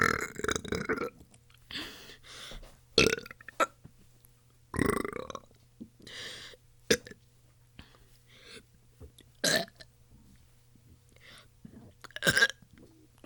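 A person burping over and over: a string of short burps a second or few apart, several of them loud, with softer ones in between.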